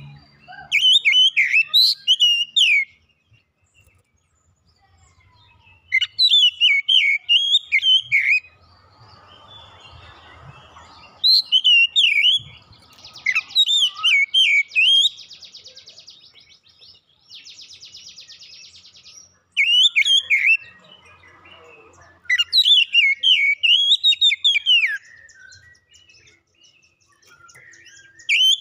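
Oriental magpie-robin (kacer) singing in short bursts of fast, varied whistled phrases a few seconds apart, with stretches of harsh rasping chatter in the middle.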